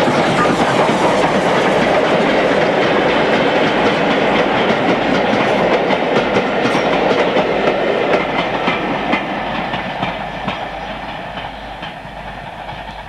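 Steam train running, a steady rushing clatter that fades away over the last five seconds as the train draws off.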